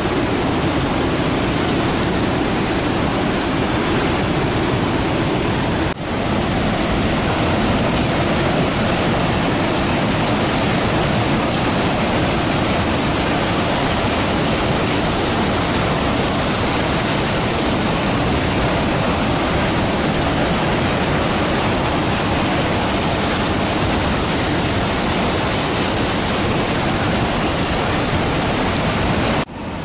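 Heavy surf breaking on a rocky shore: a loud, steady rush of crashing waves and foam, dipping briefly about six seconds in.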